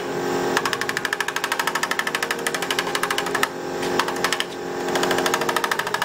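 A small hand-held power tool hammering rapidly on the brass upper tank of a radiator, about ten strikes a second, in two runs with a short pause between them.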